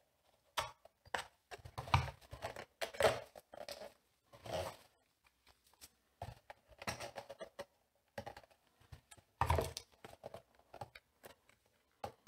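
Cutter knife scraping and cutting around the rim of a plastic container, trimming off leftover pieces of its seal: irregular scrapes, clicks and crinkles in short clusters, with a few louder ones, plus handling of the container.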